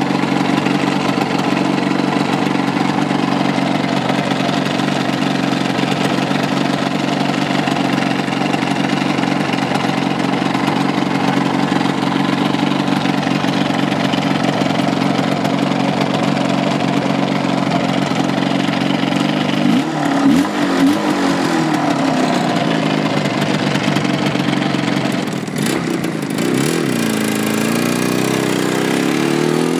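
Water-cooled IZh Jupiter two-stroke twin motorcycle engine idling steadily, blipped a couple of times about two-thirds through. Near the end the revs rise and fall in a few sweeps.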